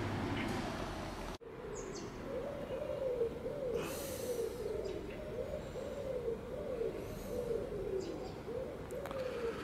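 A pigeon cooing over and over, a low call repeated about twice a second. Before a cut about a second in there is a low rumble.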